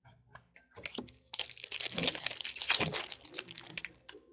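Plastic-foil wrapper of a retail hockey card pack being torn open and crinkled in the hands. The crinkling starts about a second in and stops shortly before the end.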